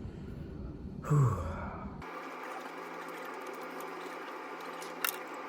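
A man sighs heavily about a second in, his voice falling in pitch. Then comes a steady hiss with a faint hum, and a single click near the end.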